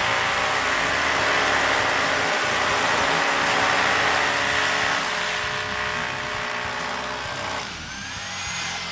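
Corded Bosch, DeWalt, Makita and Milwaukee rotary hammers hammer-drilling into a concrete wall together: a loud, steady motor-and-hammering din that starts suddenly, eases a little about five seconds in and drops off near the end as the drills finish their holes.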